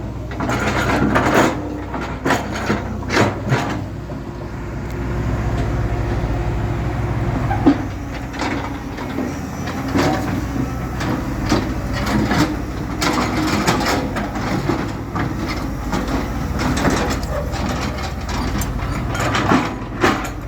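Backhoe loader's diesel engine running steadily, with repeated clanks and knocks from the working machine, densest in the first few seconds and again later on.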